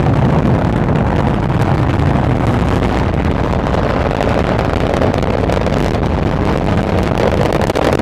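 Long March 5B rocket's engines heard from the viewing field during launch: a loud, steady, deep rumble with crackle as the rocket climbs.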